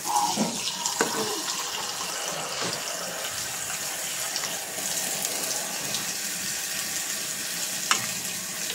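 Water being poured steadily into a pot of chicken curry, a continuous splashing flow, while a ladle stirs and knocks against the metal pot about a second in and again near the end.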